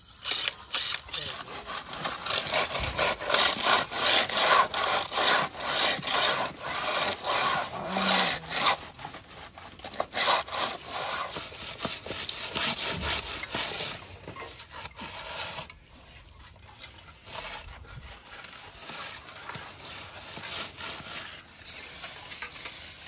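Hand float and trowel rubbed back and forth over the fresh concrete faces of the steps: a fast run of gritty scraping strokes, loudest over the first half and fainter later.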